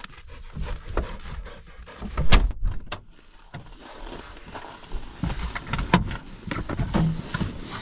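A 1997 Land Rover Defender's rear door slammed shut about two seconds in, followed by scattered knocks and rustling as someone climbs in at the driver's door.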